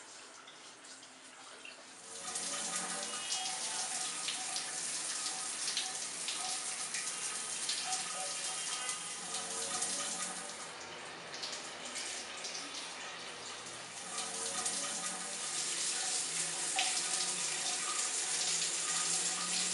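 Shower running: water spraying from an overhead rain showerhead and splashing down, starting up loud about two seconds in as a steady hiss.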